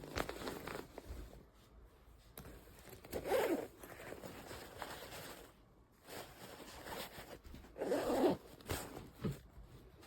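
Zipper on a fabric travel backpack being pulled, two longer rasping pulls about three and a half and eight seconds in, with small clicks and handling rustle of the bag between.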